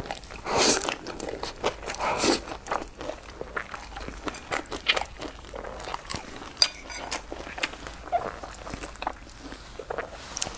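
Close-miked eating: a person slurps up a mouthful of noodles in chili sauce twice in the first few seconds, then chews wetly with many small mouth clicks and smacks.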